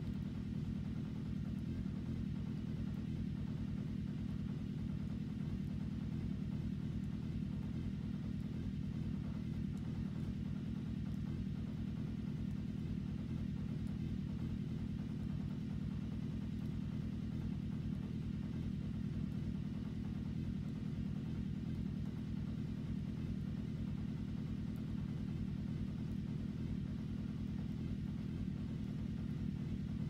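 A steady, unchanging low rumble.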